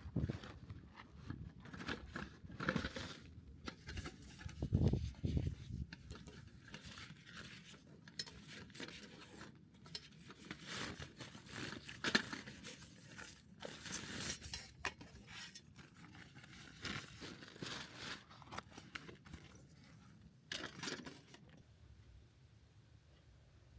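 Objects being handled by hand: irregular rustling, crinkling and scraping with scattered light knocks, like packaging or gear being opened and sorted.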